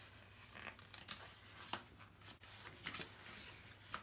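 Faint, scattered clicks and rustles of a small plastic EOS lip balm and its packaging being handled and opened.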